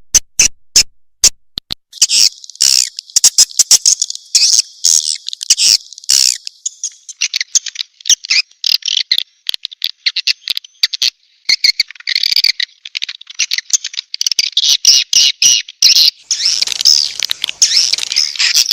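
Recorded swiftlet lure call (suara panggil walet) of edible-nest swiftlets: rapid sharp clicks at first, then dense, fast, high-pitched twittering chirps with brief gaps. It is the calling sound played to draw swiftlets into a nesting house.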